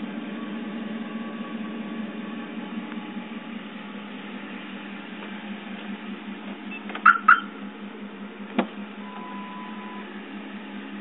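2009 Ford F-150's V8 idling through Flowmaster 50 Series mufflers, a steady low hum. Two short high sounds about seven seconds in, a click about a second and a half later as the truck's door is opened, then a steady beep lasting about a second.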